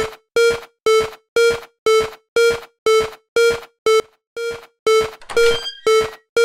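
Railway level crossing warning bell ringing 'kan-kan' in an even rhythm, about two strikes a second, each a single clear tone that dies away quickly.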